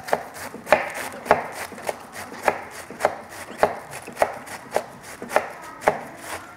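Chef's knife finely shredding a wedge of cabbage on a plastic cutting board: each stroke gives a short crunch through the leaves ending in a knock of the blade on the board, at an even pace of a little under two strokes a second, with a soft rustle between strokes.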